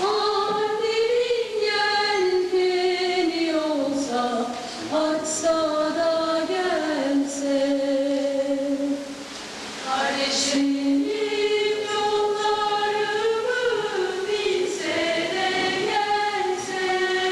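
A choir singing a slow melody in long held notes, with a few short breaks between phrases.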